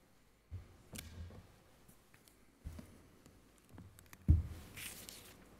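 Small handling noises as a priest works at the altar: a few soft knocks and clicks, with one louder thump about four seconds in and a brief hiss just after.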